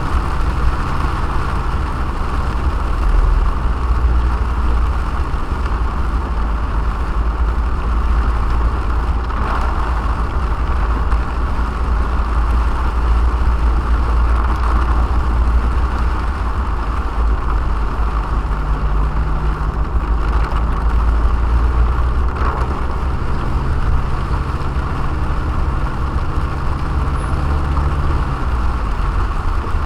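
Steady cabin noise of a moving car: a heavy low road-and-engine rumble under an even hiss, with the engine hum shifting pitch slightly a couple of times.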